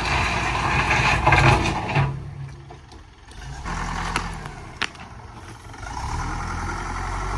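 Vehicle engine running. It is loud for the first two seconds, falls away briefly, then comes back steady, with a single sharp click in the middle.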